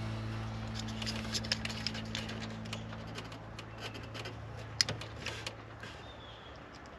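Small, irregular plastic clicks and scrapes of hands working pins and terminals into an automotive wiring connector, with one sharper click about five seconds in.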